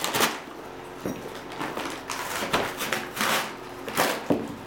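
A paper bag of charcoal briquets being torn and pulled open: about half a dozen short paper rustles and rips.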